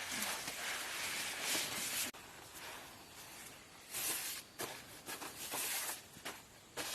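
Rustling and scraping noise: a continuous stretch that stops abruptly about two seconds in, then several shorter bursts with a few sharp clicks.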